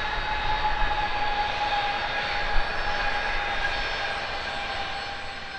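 Jet airliner's engines passing: a steady whine over a broad rush, slightly lower in pitch and fading toward the end as the aircraft moves away.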